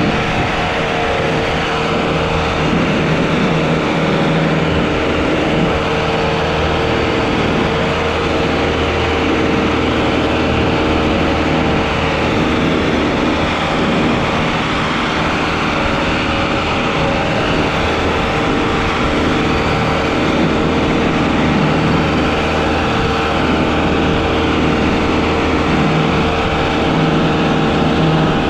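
Sonalika DI-750 III tractor's diesel engine running steadily under load, pulling a trolley heaped with sand through soft ground.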